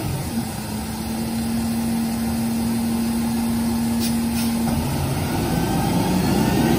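New Way rear-loader garbage truck idling with a steady hum, two sharp clicks about four seconds in, then the engine picking up with a rising whine as the truck pulls away near the end.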